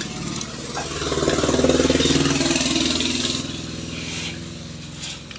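A motor runs with a fast, even pulsing. It swells about a second in, holds for a couple of seconds, then dies away.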